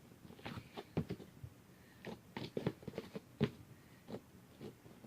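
Scattered small clicks and taps of objects being handled, irregular, with a few louder knocks about a second in and past the middle.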